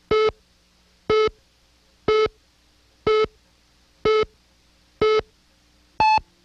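Countdown leader beeps on a videotape slate: a short, buzzy beep once a second, seven in all, the last one, on the count of two, higher in pitch.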